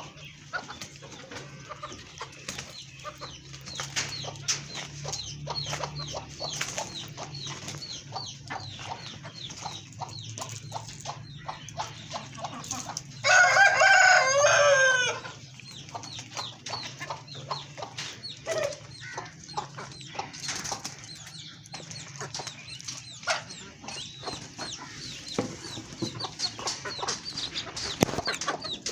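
Chicks peeping almost constantly in short, high chirps, with hens clucking. A rooster crows once, loudly, for about two seconds near the middle.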